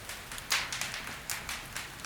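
Wood fire in a fireplace crackling: irregular sharp pops and snaps from the burning logs over a soft hiss, the loudest pop about a quarter of the way in, followed by a run of smaller crackles.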